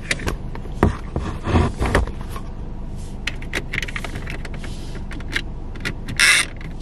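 Hands adjusting a camera in a plastic dashboard mount close to the microphone: a string of irregular clicks and knocks with handling rustle between them, and a short rustle near the end.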